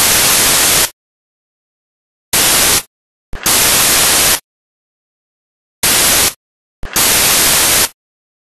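Loud bursts of white-noise static that switch on and off abruptly, alternating a short burst with a longer one in a steady repeating pattern, with dead silence between.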